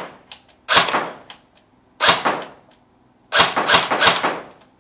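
Tokyo Marui FA-MAS 5.56-F1 electric airsoft gun (AEG) firing single semi-automatic shots, roughly one every second or so, each a sharp report that dies away quickly. The shooter finds its cycle long and a little slow.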